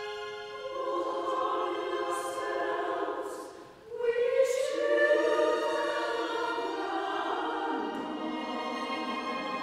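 Mixed chamber choir singing a classical choral work with string orchestra, the s-sounds of the words standing out. The voices drop away briefly just before the four-second mark, then come back in louder.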